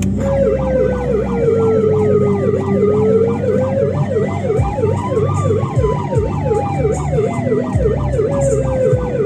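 Car-mounted Ahuja hooter sounding a police-style siren. A fast warbling yelp repeats about three times a second over a slower wail that dips, climbs for about three seconds to a peak a little past the middle, then slowly falls.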